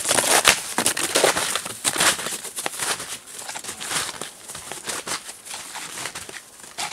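Boots crunching through snow, an irregular run of footsteps from more than one walker, louder in the first two seconds and fainter after.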